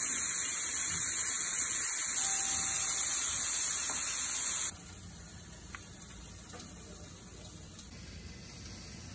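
Beef steaks sizzling on the grill plate of an electric indoor grill, a steady loud hiss that cuts off abruptly a little under five seconds in, leaving only a faint hiss.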